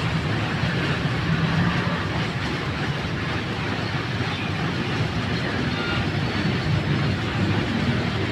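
Tezgam express train passing close by, its wheels running steadily over the track.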